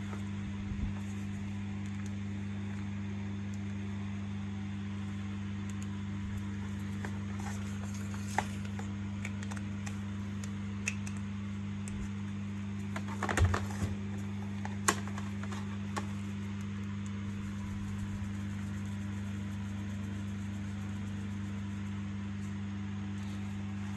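Steady low electrical hum with a few scattered light clicks and knocks, the loudest cluster a little past halfway.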